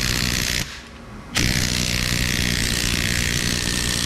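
A power tool running in two long bursts, with a short break about a second in, while a U-joint bearing cup is pressed out of a driveshaft yoke.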